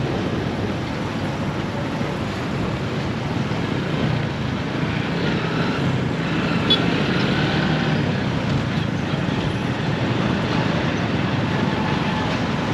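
Steady road traffic noise: motor vehicles running and passing on a busy road.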